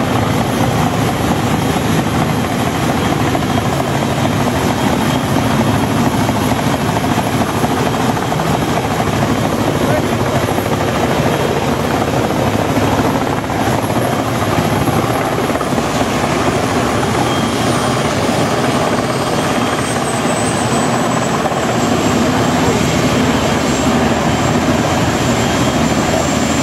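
VH-60N White Hawk presidential helicopters flying low and setting down, their rotors and turbine engines running loud and steady. A thin high whine slowly falls in pitch through the second half.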